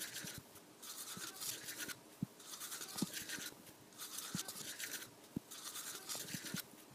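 Teeth being brushed with a manual toothbrush: quick scrubbing strokes in bouts of about a second, with short pauses between.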